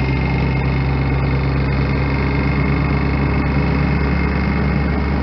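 An engine or motor running steadily at a constant speed with a low, even hum.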